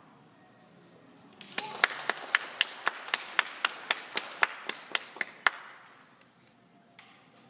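Applause: sharp, steady hand claps close by, about four a second, over a wider spread of clapping. They start about a second and a half in and stop about four seconds later.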